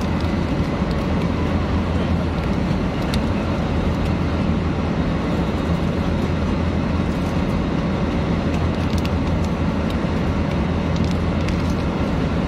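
Steady drone of an airliner cabin in flight, with a few faint crinkles from a plastic snack wrapper being handled.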